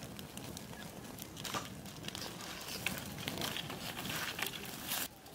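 Open wood fire of dry bamboo and twigs crackling with many sharp pops as a goat's head is singed over it; the sound drops away suddenly near the end.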